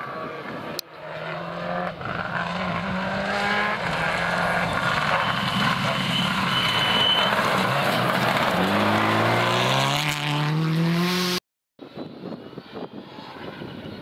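Subaru Impreza rally car's turbocharged flat-four engine at high revs on a gravel stage, holding a steady note and then rising in pitch as it accelerates past. Near the end the sound breaks off briefly and a Mitsubishi Lancer Evolution rally car's engine is heard further off.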